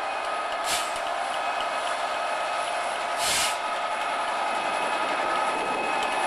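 EWS Class 67 diesel-electric locomotive, with its EMD V12 two-stroke engine, running steadily with a droning hum and whine as it draws slowly along, growing gradually louder. A brief rush of noise comes about three seconds in, and a fainter one about a second in.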